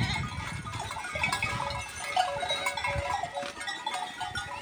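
A herd of goats bleating, many short calls overlapping one another.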